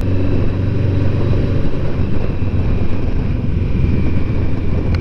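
Motorcycle engine running steadily while riding along, with a low engine note strongest in the first couple of seconds.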